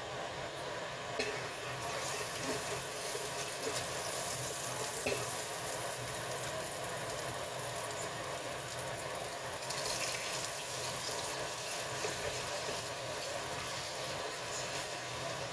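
Hot oiled wok sizzling with a steady hiss. Sliced beef is tipped in and stirred with a spatula, which adds light scraping and clicks.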